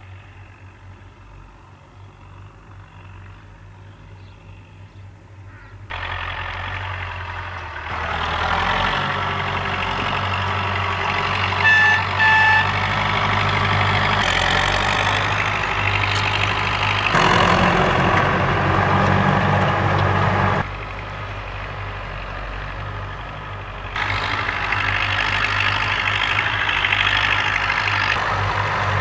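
UTB 650 tractors' diesel engines running steadily as they pull disc harrows, fainter at first and louder from about six seconds in, with abrupt jumps in level. Two short beeps sound near the middle.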